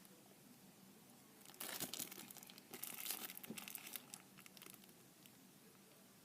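Faint crinkling of packaging being handled, in two short spells, starting about one and a half seconds in and again between about two and a half and three and a half seconds in.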